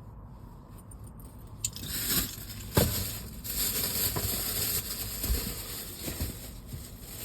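Rustling and crinkling handling noise, with a sharp thump about three seconds in.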